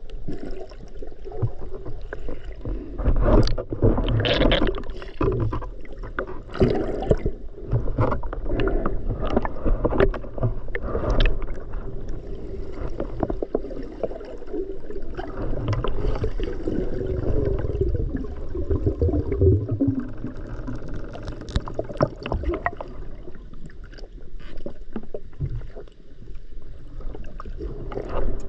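Water sloshing and gurgling, heard underwater as a spearfisher swims, with many scattered clicks and knocks over a low rumble.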